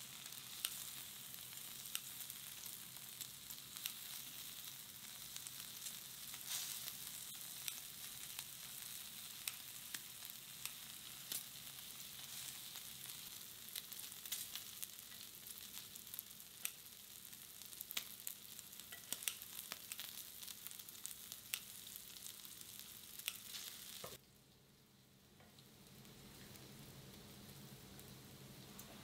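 Pork belly (samgyeopsal) sizzling on a round grill pan, a steady frying hiss with frequent sharp crackles and pops of spitting fat. About 24 seconds in the sizzle stops abruptly and only a much quieter, steady background remains.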